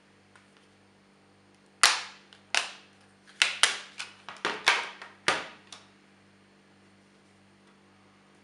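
A Samsung phone's plastic back cover being prised off, its retaining clips snapping loose in a run of about eight sharp clicks over some four seconds, the first the loudest.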